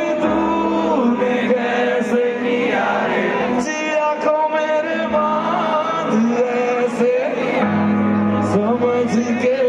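Live concert music over a PA system: a male singer holding long, sliding notes over a band with a steady bass line, heard from among the audience.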